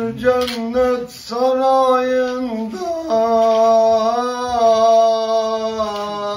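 A man singing unaccompanied in long held notes of a folk or devotional song, his voice sliding between pitches with short breaths between phrases.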